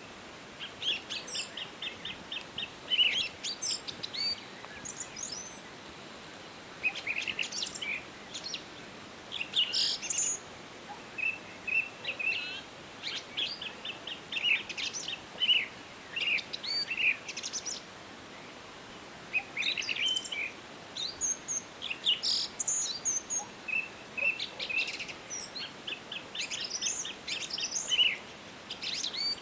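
Several songbirds singing and calling: rapid series of short high chirps and trills in bursts of a few seconds, with short pauses, over a faint steady background hiss.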